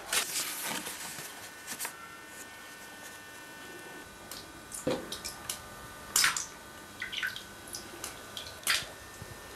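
Bathwater in a full tub sloshing and dripping in a few short splashes as someone shifts in the bath, the loudest near the middle and near the end, over a faint steady hum.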